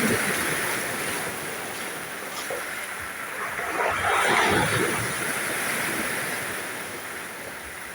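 Sea waves washing onto the shore, a steady surf hiss with one wave swelling loudest about four seconds in and then easing.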